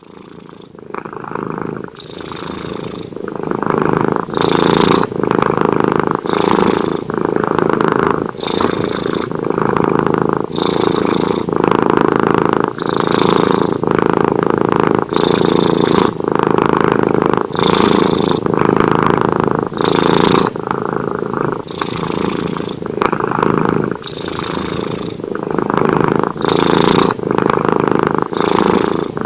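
A cat snoring in its sleep, a rough, rattling sound on every breath in a steady rhythm of about one breath every two seconds.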